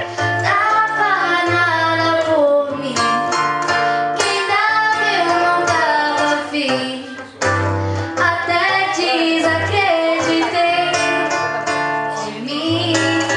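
A female voice singing a melody over acoustic guitar accompaniment, with a short break about seven seconds in before the singing resumes.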